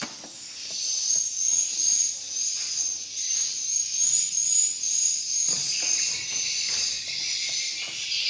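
Many edible-nest swiftlets twittering, a dense, continuous high-pitched chatter of overlapping chirps.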